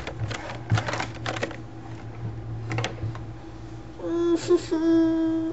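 Computer keyboard keys clattering in a quick cluster of clicks as a baby bangs on them, with one more click a little later. Near the end the baby gives a high, drawn-out whine.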